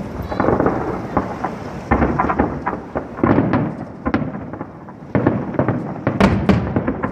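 Aerial firework shells bursting one after another, a run of sharp booms with rumbling tails, several coming in quick clusters.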